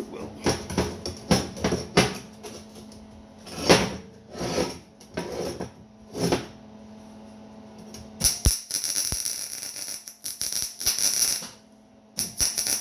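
Workshop metalwork: a run of sharp knocks and light metallic clatter, then from about eight seconds in two stretches of harsh, hissing scraping, over a faint steady hum.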